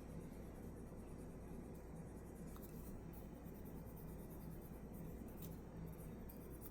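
Faint scratchy rubbing of a cotton swab scrubbing grime inside a pistol frame, over a low steady hum.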